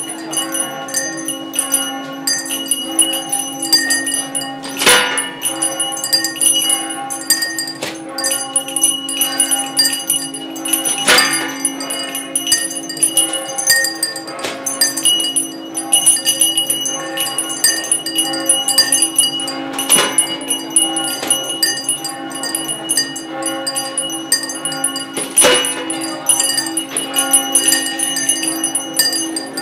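Many bells struck and ringing together as a musical composition, their tones overlapping over a steady low tone. Light strikes come thick and fast, with a few louder strikes standing out about four times.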